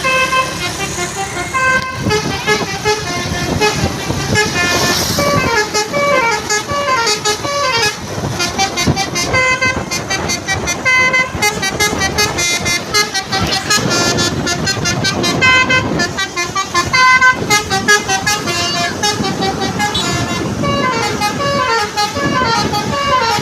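Indonesian bus 'telolet' multi-tone horn (Basuri type) playing a melody: several horn tones sound together and step up and down in pitch, note after note, without a break.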